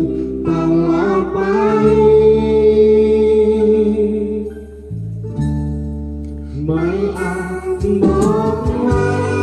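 A young girl singing through a microphone and loudspeaker over an instrumental backing track. She holds a long note, drops out for about two seconds around the middle while the backing plays on, then sings again.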